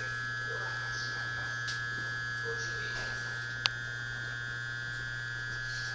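Interior of an E217-series commuter train car standing still: the onboard electrical equipment gives a steady hum and a steady high tone, with no running noise. A single sharp click comes about three and a half seconds in.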